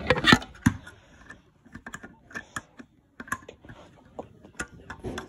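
Irregular clicking and tapping of hard objects being handled, a quick cluster of louder clicks at the start and then scattered lighter taps.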